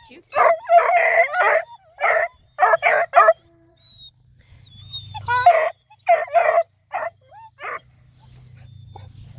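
Black and tan coonhound puppies calling over one another in runs of short, pitched yelps, loud and crowded for the first eight seconds, then dying down to a few faint high squeaks.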